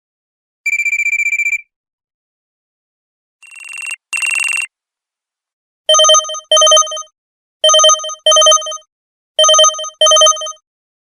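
LG KE500 mobile phone playing ringtones through its loudspeaker. First comes a short trilling electronic tone, then a two-part tone that swells in, then a ringtone in a telephone's double-ring pattern, ringing three pairs.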